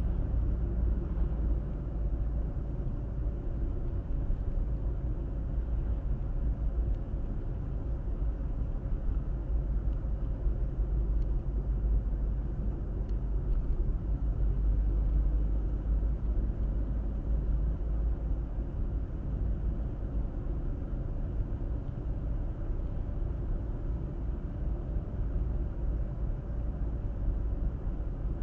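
Car driving at a steady pace: a continuous low rumble of tyre, road and engine noise that swells a little and settles again without a break.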